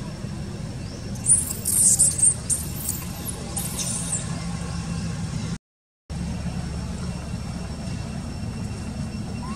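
Baby long-tailed macaque crying: a run of shrill, high-pitched squeals from about one to four seconds in, some sliding down at the end, over a steady low rumble. The sound cuts out for half a second near the middle.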